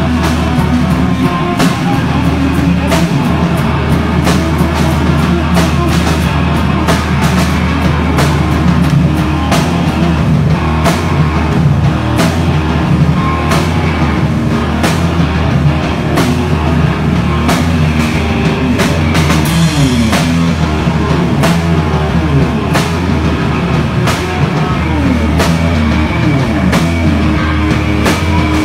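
Live hard rock band playing loudly: electric guitars and bass over a pounding drum kit.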